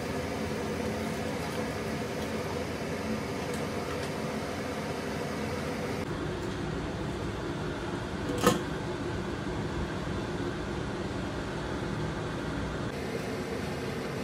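Steady mechanical hum of a kitchen appliance or fan running, with a single sharp metallic clack about eight and a half seconds in as the steel pressure-cooker lid is put on and closed.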